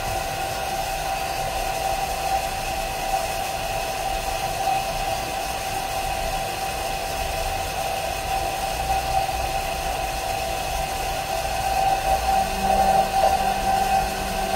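Hair dryer running steadily, heating a phone's back cover: a constant motor whine over a rush of air, with a lower hum joining near the end.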